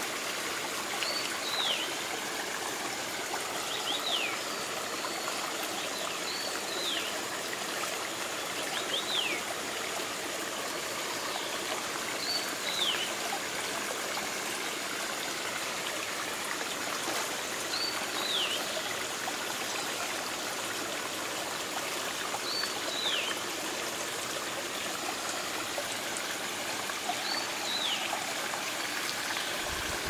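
Shallow rocky stream trickling steadily over stones, while a Steere's liocichla repeats a short whistled call that slides down in pitch, about eight times, every few seconds.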